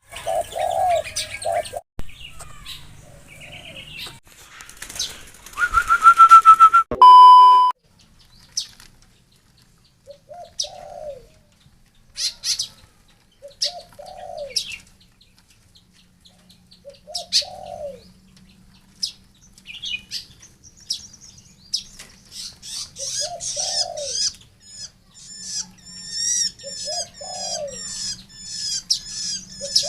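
Birds calling: a short falling call repeats every two to three seconds, and rapid high chirping builds up in the second half. A loud noisy stretch and a brief steady beep come first.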